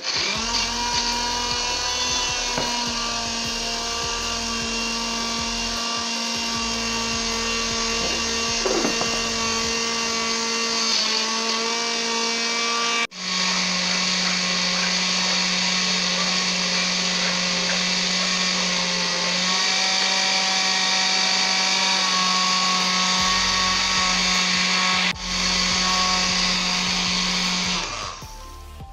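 Electric kitchen blender running with a steady motor whine, blending ingredients to extract their juice. It cuts off about halfway through and starts again at a slightly lower pitch, with a brief dip before stopping near the end.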